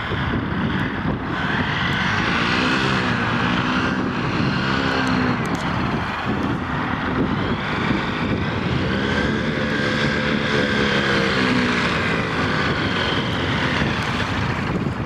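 Paramotor engine running and driving its propeller while the wheeled trolley rolls across grass. The engine note rises and falls twice in long swells.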